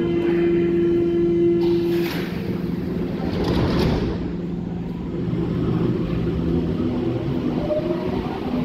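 Berlin U-Bahn train pulling out of the station and running away along the platform: electric motor hum at first, giving way to wheel-and-rail rumble as it accelerates away.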